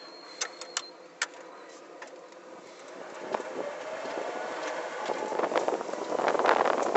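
Three switch clicks within the first second or so. Then the electric go-kart's Motenergy brushless motor gives a faint rising whine through its quiet belt drive as it pulls away. Road noise builds, and over the last two seconds wind buffets the microphone loudly.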